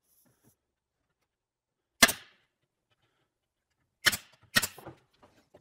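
Brad nailer firing 1-inch brad nails to tack a wooden nailer in place: one sharp shot about two seconds in, then two more close together near the end.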